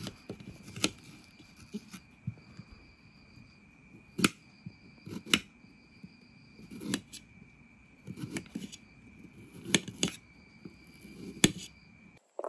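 Red onion being sliced with a small kitchen knife over a ceramic plate: soft crunching cuts and a sharp click of the blade every second or two. A faint steady high tone runs underneath.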